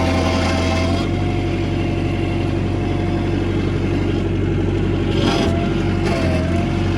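Bobcat 743 skid steer engine running steadily, with a thin whine above the engine drone that shifts in pitch a few times, about a second in and again after five seconds.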